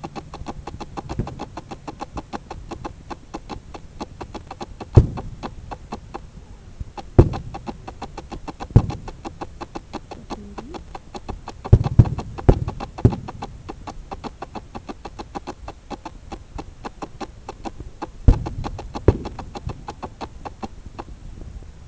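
Fireworks shells bursting with sharp booms, about nine in all, several close together near the middle and two more near the end, over a steady rapid clicking.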